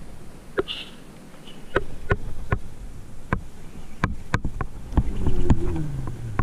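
Sharp clicks and taps at irregular intervals, about one every half second to a second, from a baitcasting rod and reel as a jig is let down and worked, over a faint steady buzz.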